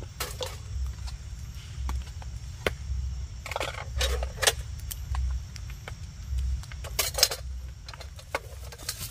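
Metal camping cook pot and lid being handled: scattered light clinks and knocks, with two busier bursts of metallic clatter and scraping about three and a half and seven seconds in. A low rumble runs underneath.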